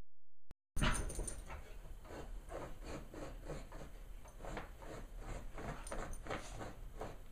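A dog breathing in quick, rhythmic, noisy breaths, about three a second, starting just under a second in.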